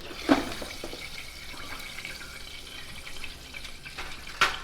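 Chicken frying in deep hot oil with a steady sizzle, and two sharp knocks, one just after the start and one near the end.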